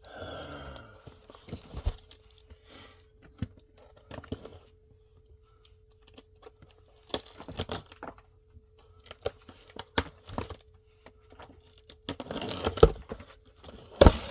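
A package being torn open and handled by hand: packaging tearing and crinkling in irregular bursts with sharp clicks. The loudest tearing comes near the end.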